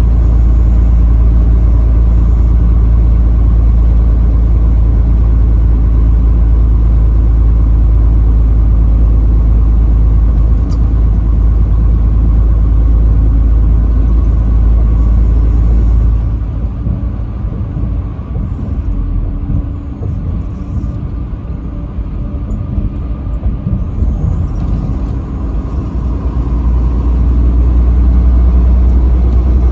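Steady low rumble of engine and road noise inside a moving truck's cab. It eases off for about ten seconds past the middle, then builds up again near the end.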